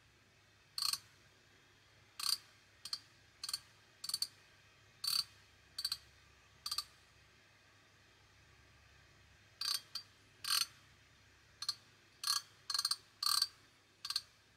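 A 3/8-inch drive ratchet handle being turned in its freewheel direction: the pawl clicks over the gear teeth in about sixteen short bursts, in two runs with a pause of a few seconds between them.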